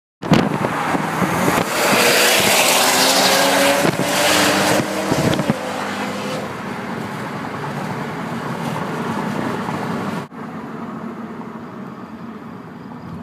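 BMW 135i's turbocharged straight-six running through an RPI dual exhaust, accelerating with the exhaust note rising in pitch for about three seconds, then dropping back to a steadier, quieter sound. There is a brief dip about ten seconds in.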